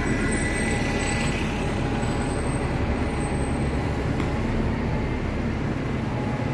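Steady city traffic noise: a continuous low rumble of road vehicles with a general hiss of the street.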